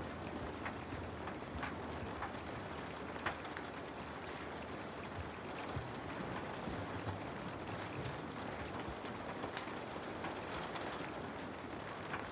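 Steady rain with scattered individual drops tapping on a window.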